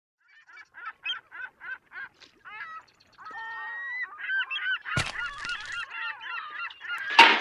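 Birds honking: many short calls in quick succession that grow denser and overlap, with a brief steady whistle-like tone near the middle. A sharp crack cuts through about five seconds in, and a louder one comes near the end.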